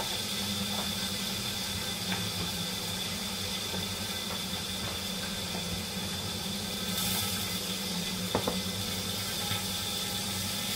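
Steady sizzling hiss of pork belly frying in oil in a covered wok, with oil splattering under the lid and a few faint ticks, over a steady hum.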